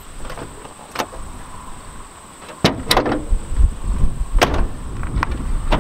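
1990 Chevy Silverado pickup's driver door opened and the hood release worked: a few sharp clunks and clicks of the door and latch, the loudest about two and a half seconds in.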